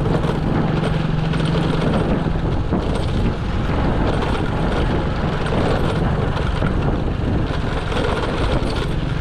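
Vehicle on the move along a rough road: a steady engine hum under dense wind and road noise. The hum weakens in the middle and comes back near the end.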